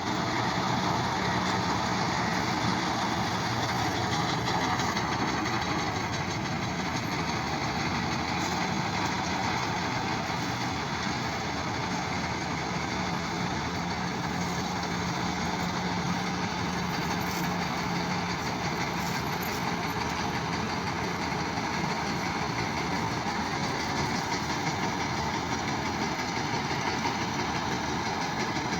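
New Holland tractor engine and a tractor-drawn paddy straw baler running steadily together, a dense, even machine noise with a low steady hum.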